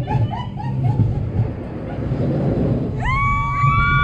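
Family roller coaster train rumbling on its track, with a loud high-pitched squeal that starts about three seconds in and is held steady.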